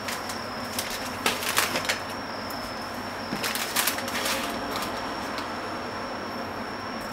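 Food sizzling in a frying pan: a steady hiss with two clusters of crackling pops, about a second in and again around the middle.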